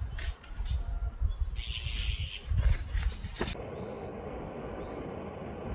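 Outdoor ambience: wind buffeting the microphone with a few bird chirps and light clicks. About three and a half seconds in it cuts abruptly to a steady, even hiss.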